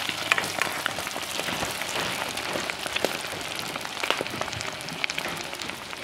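Halved boiled eggs frying in hot oil with turmeric in a kadhai: a steady sizzle with many small scattered pops and crackles.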